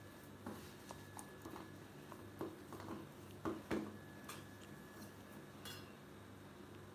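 Hand mixing a stiff wheat-flour dough in a stainless steel bowl: faint, scattered soft knocks and scrapes of fingers and dough against the steel.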